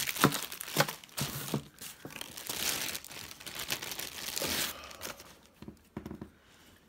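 Clear plastic bags crinkling and crackling as camera gear is unwrapped by hand. Sharp crackles come first, then a dense stretch of rustling in the middle, fading to a few soft handling knocks near the end.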